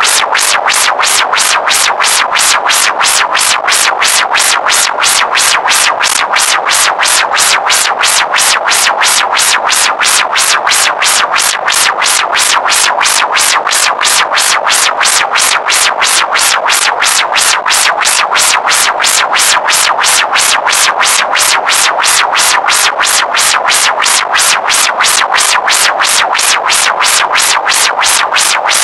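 Loud, unchanging electronic synthesizer sound pulsing rapidly at an even rhythm.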